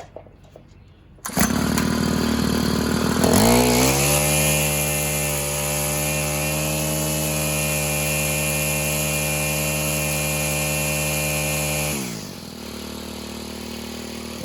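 Stihl KM110R trimmer engine starting and running after its ignition coil was replaced: a little over a second in it fires and runs at a low idle, then revs up about two seconds later and holds steady at high speed for about eight seconds before dropping back to a lower speed near the end.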